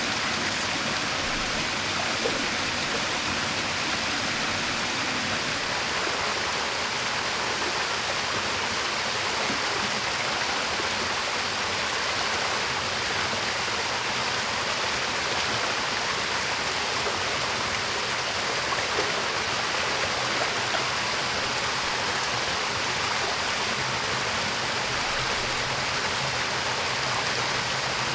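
Small waterfall pouring into a rock pool: a steady rush of falling water that does not change.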